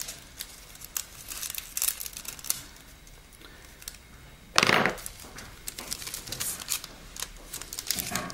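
Thin nail-art transfer foil crinkling as it is handled and a small piece is taken off, with one louder rustle about halfway through.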